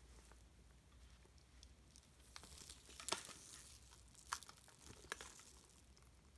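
Faint handling noise: soft rustles and a few light clicks as a quilted lambskin handbag with a chain strap is turned over in the hands.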